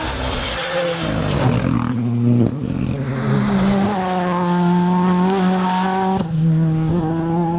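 Rally car engine at high revs. A noisy rush and a falling engine note give way to a steady, held note with a brief break about six seconds in.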